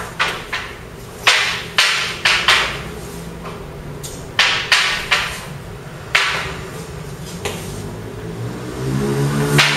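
Long wooden spear shafts clacking together in sparring, sharp wood-on-wood strikes in quick clusters of two or three with pauses between exchanges. A drawn-out pitched sound, like a voice, rises near the end.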